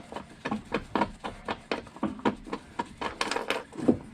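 Hand ratchet wrench turning out a strut-mount bolt: a quick series of short clicks and knocks, about four a second, with a louder knock near the end.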